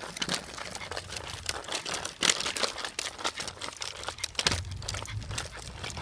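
Irregular crackling and scuffing of a small dog walking in a four-wheel wheelchair along a concrete sidewalk, its wheels rolling and paws stepping. A low rumble comes in about two-thirds of the way through.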